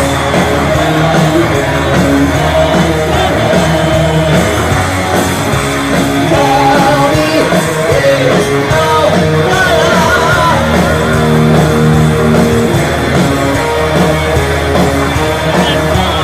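Live heavy metal band playing at full volume: distorted electric guitars, bass and drums.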